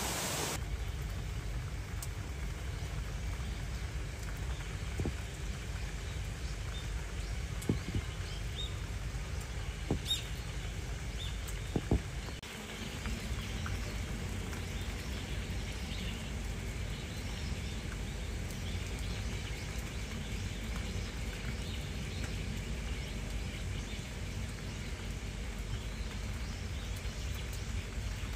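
Outdoor ambience on a rainy day: a steady low rumble with faint rain patter, and a few light taps and knocks around the middle.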